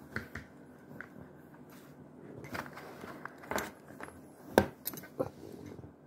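Rose-ringed parakeet pecking at the metal cap of a water bottle: a few irregular sharp clicks and taps, the loudest about four and a half seconds in.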